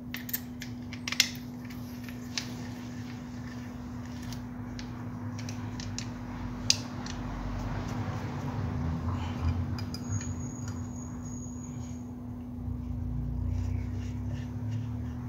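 Small metal clicks and clinks from the parts of an Escualo fishing reel being handled and fitted back together: a few in the first couple of seconds and one about seven seconds in, over a steady low hum.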